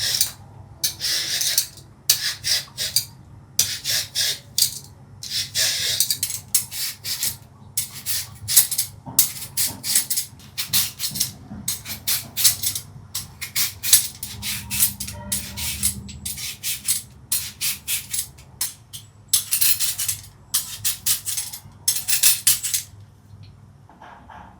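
Quick rasping, scraping strokes of kitchen food preparation, a few a second in uneven runs, over a steady low hum; they stop near the end.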